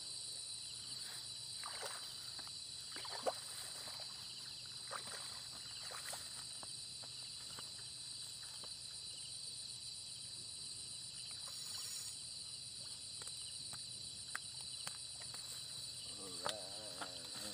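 Night insect chorus: a steady, high-pitched trilling that holds on without a break. Soft rustles and clicks from movement through wet grass, and a brief voice near the end.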